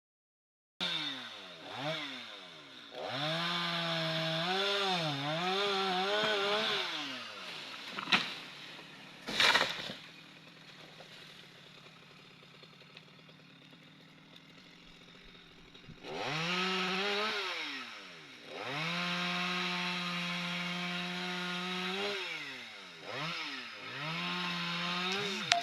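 Chainsaw revving hard in repeated bursts, its pitch rising and falling with the throttle during cuts. Two sharp cracks come about eight and nine and a half seconds in. The saw then drops to a low level for several seconds before revving through cuts again.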